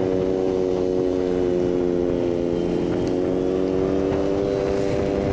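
Motorcycle engine running at steady cruising speed, heard from the rider's seat over a low rush of wind and road noise. The engine note sags slightly about two seconds in, then climbs again toward the end.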